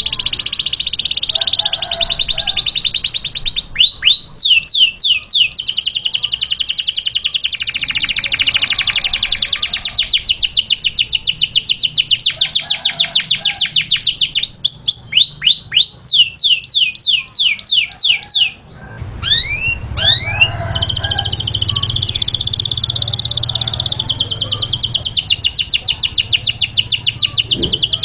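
Domestic canary singing continuously in long rapid trills of fast repeated high notes, broken by runs of downward-sweeping notes, with a brief pause about two-thirds of the way through.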